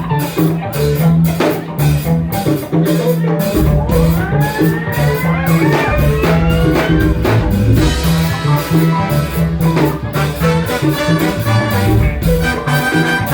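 Live Afro-funk band playing an instrumental passage with no vocals: drum kit keeping a steady beat under bass and horns, with a rising swell about four seconds in.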